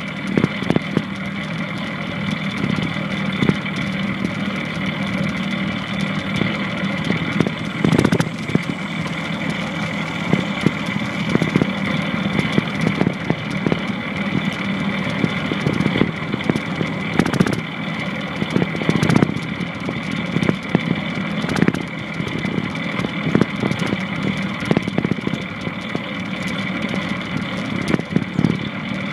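Longboard wheels rolling steadily over pavement, with scattered sharp knocks from the land paddle's tip striking the ground and cracks in the road.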